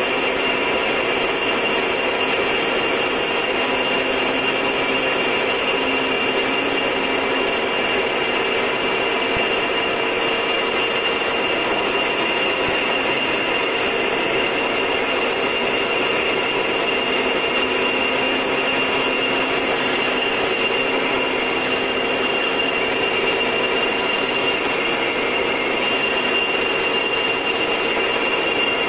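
Short Tucano's Garrett TPE331 turboprop engine and propeller running steadily in flight: an even rushing noise with several steady whining tones over it.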